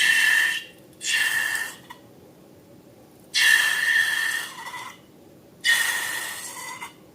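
Air rushing out of a balloon's neck in four short bursts, each a hiss carrying a steady high squeal; the later two bursts are longer and tail off.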